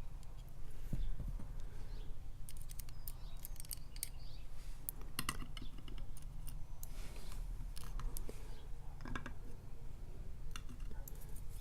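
Scattered small metallic clicks and ticks of tools working in a disassembled lock as the last pins and springs are taken out. A low steady hum runs underneath.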